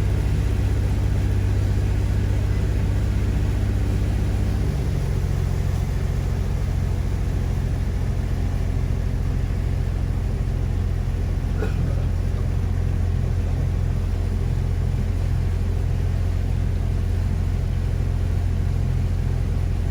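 A boat's engine running steadily at cruising speed with a low, even drone; its note changes slightly about five seconds in.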